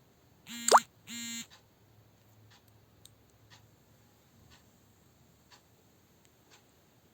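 Two short buzzy tones, each held at one steady pitch, about half a second apart near the start; the first ends in a fast, loud rising sweep. A clock ticks faintly about once a second.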